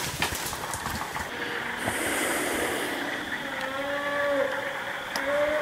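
Death moan of a bow-shot chocolate-phase black bear: drawn-out, low bawling moans, about a second each, starting a little past halfway through and repeating, after a stretch of rustling noise.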